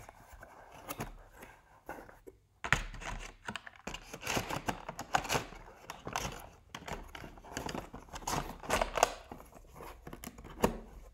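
Cardboard box and a clear plastic packaging tray being handled: a run of irregular rustles, scrapes and clicks as the tray is moved in the box and the cardboard flaps are folded shut.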